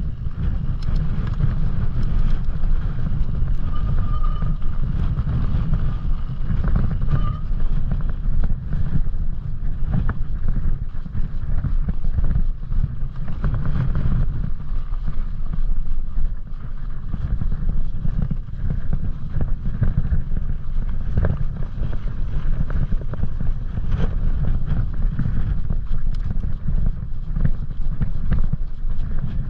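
Wind buffeting the microphone as a mountain bike rolls over frozen snow and loose rocks, with frequent clicks and rattles from the bike and tyres.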